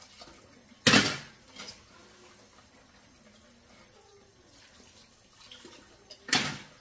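Dishes being washed by hand under a running tap in a stainless steel sink: a faint steady stream of water, with two loud, short clatters of dishware, about a second in and near the end.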